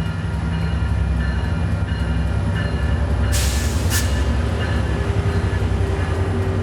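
Train passing a grade crossing, a heavy low engine rumble with the crossing's warning bells ringing over it in a repeating pattern. A short sharp hiss cuts in about three seconds in and stops under a second later.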